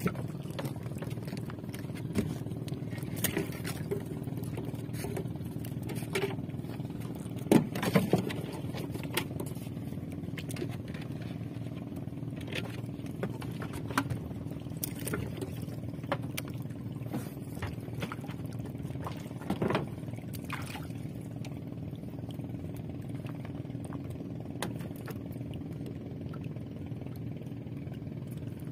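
Steady low hum of a small boat engine running, with occasional knocks and clatter from gear being handled against the boat's wooden hull.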